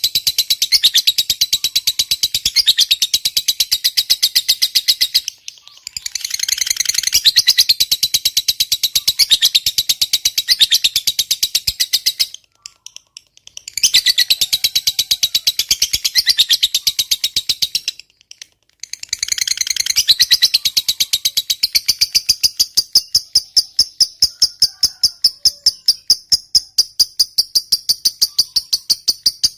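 Lovebird in a long, rapid chattering trill of high-pitched notes, the continuous chatter that lovebird keepers call 'ngekek panjang'. It comes in long runs broken by brief pauses about five, twelve and eighteen seconds in.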